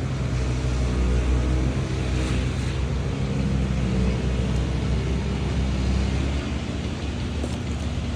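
An engine running steadily with a low hum, under a haze of noise.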